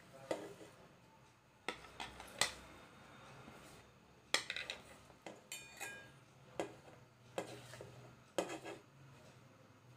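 Plastic plate tapping and scraping against the rim of a steel bowl as chopped vegetables are pushed off it by hand. About ten separate sharp taps, one near the middle followed by a brief metallic ring.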